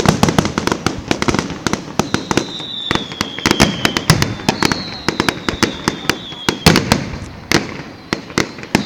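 Fireworks display: rapid, irregular bangs and crackles from bursting shells. A high whistle falls slightly in pitch about two seconds in, and again from about four and a half seconds in.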